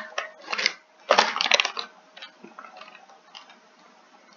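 Crinkling of a foil snack bag being handled, in two bursts of about a second each, then fainter scattered rustles.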